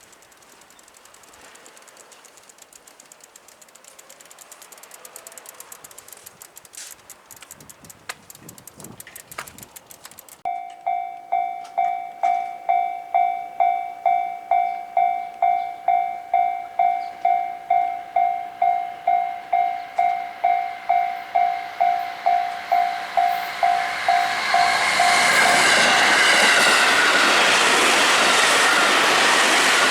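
Japanese railway level-crossing warning bell starts about a third of the way in, an electronic ding repeating about twice a second. Near the end a train runs through the crossing at speed, its rushing wheel and rail noise rising and covering the bell.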